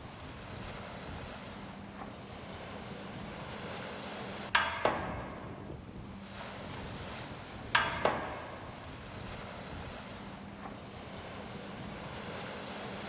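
Steady surf and wind noise on the microphone. It is broken twice by a pair of sharp, ringing knocks, the two in each pair a third of a second apart and the pairs about three seconds apart.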